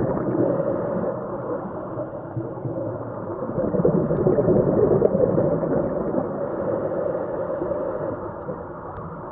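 Scuba diver breathing through a regulator underwater: a low rumble of exhaled bubbles that swells and fades, with a short hiss of inhaled air about half a second in and again at about six and a half seconds.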